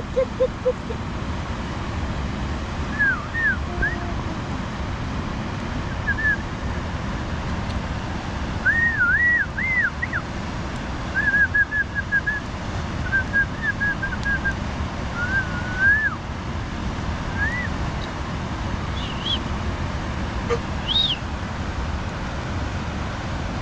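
A dog whining in short, high, rising-and-falling whimpers, some in quick runs of several, over a steady rushing noise.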